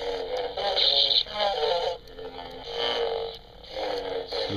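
Interactive Darth Vader toy figure playing electronic voice sounds through its small built-in speaker, thin and tinny.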